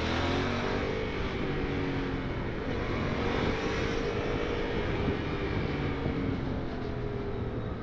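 Motorcycle engine accelerating, its pitch rising over the first second and again a few seconds in, with road and wind noise underneath.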